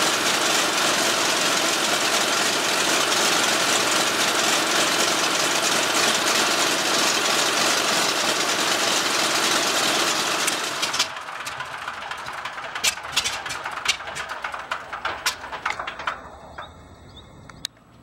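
Douglas A-26B's Pratt & Whitney R-2800 radial engine running steadily at close range. About eleven seconds in, the noise drops away sharply, leaving a few seconds of irregular sharp clicks and pops that fade out near the end.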